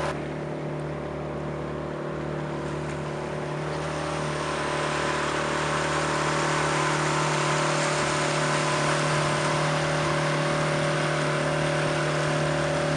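A small outboard motor drives the boat, running steadily under a rushing noise of water and wind. The sound grows louder from about four seconds in.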